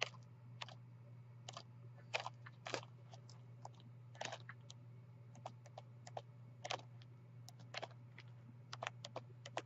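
Scattered light taps and rustles of sheets of patterned craft paper being handled and turned, irregular and a second or so apart, over a faint steady low hum.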